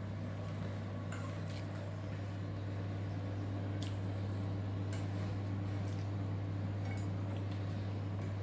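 Metal kitchen tongs clicking lightly against a metal baking tray and a ceramic plate as baked pastries are lifted across, about six separate clinks. Under them runs a steady low hum, the loudest part of the sound.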